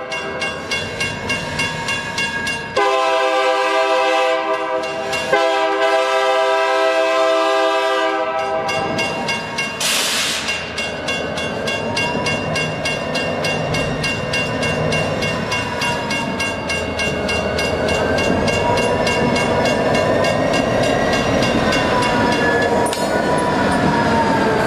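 A former Burlington Northern diesel locomotive sounds two long horn blasts, then the train rumbles past with wheels clacking, a rapid regular ringing and wavering squeals from the wheels.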